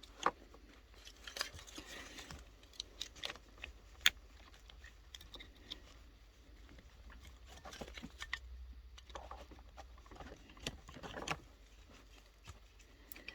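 Metal screwdriver prying and scraping under the spot-welded nickel contact strips of a Makita 18 V lithium-ion battery pack, breaking the welds loose little by little to free a dead cell. Irregular scratching with several sharp clicks.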